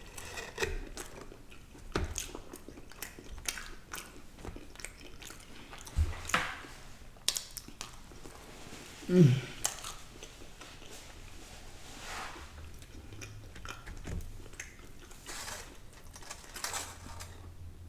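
Close-miked chewing and biting of food, with scattered wet mouth clicks and smacks. There is a brief falling vocal sound from the eater about nine seconds in.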